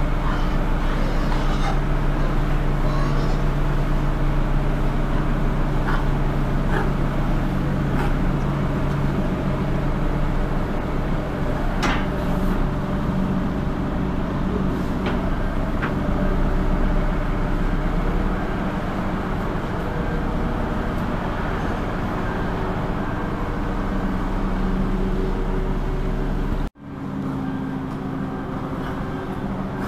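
Merlo 37.10 telehandler's diesel engine running steadily under load with a low hum, with a few faint clicks and knocks. The sound breaks off for an instant near the end and resumes at a similar level.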